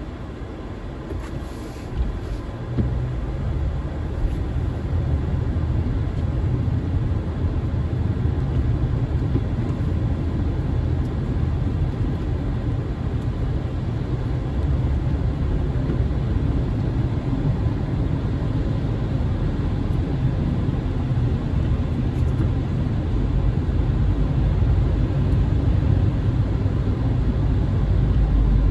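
Road noise heard from inside a moving car on a wet street: a steady low rumble of engine and tyres that grows louder over the first several seconds as the car gets under way. A few light knocks come in the first few seconds.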